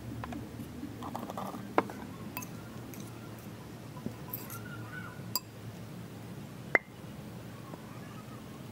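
Metal spoon clinking against a glass mixing bowl a few times while salad is stirred, over a low steady background hum. The two sharpest clinks come about two seconds in and at about seven seconds.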